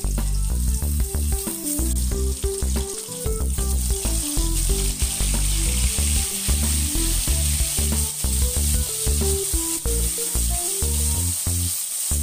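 Pieces of salted shark sizzling as they fry in hot oil in a wok, the sizzle thickening over the first few seconds, with background music.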